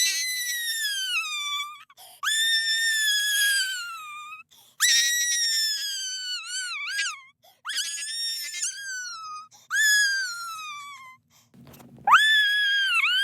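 A person's voice acting a cartoon character crying: six very high-pitched wails, each starting high and sliding down. Two of the wails break into a wobbling sob partway through. There are short breaths between the wails.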